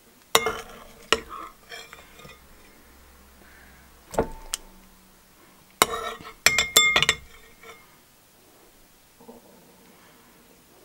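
Metal spoon clinking and scraping against porcelain rice bowls while scooping slime from one bowl to the other. There are a few sharp clinks early on, one ringing briefly about four seconds in, and a quick run of clinks around six to seven seconds in.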